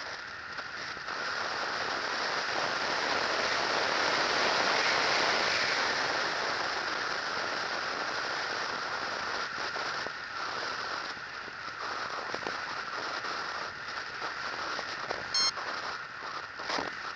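Air rushing and buffeting over the onboard camera of a Multiplex Easy Glider Pro RC glider gliding with its motor off and propeller folded. The rush swells over the first few seconds, then eases and crackles unevenly. A brief high-pitched tone sounds near the end.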